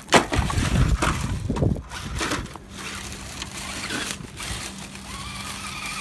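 Dry twigs and gravel crunching and snapping as an Axial Deadbolt RC rock crawler pushes through brush over rocks, loudest for about the first two seconds and then quieter.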